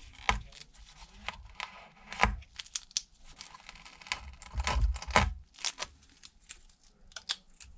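Small repair tool clicking and scraping inside an iPad as a glued-down part is pried loose from its adhesive. Irregular clicks and short scrapes, the loudest about two seconds in and around five seconds.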